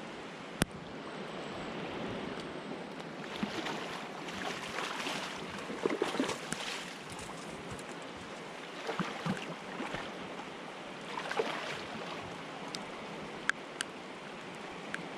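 Steady rush of river water with irregular bouts of splashing, most around the middle, and a sharp click just under a second in.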